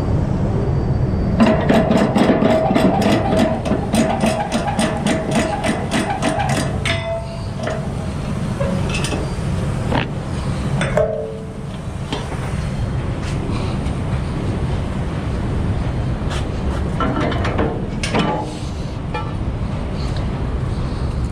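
Logging truck's engine running with a steady low rumble. For about five seconds near the start, a rapid even ticking of three or four a second sounds over it, and a few single clicks come later.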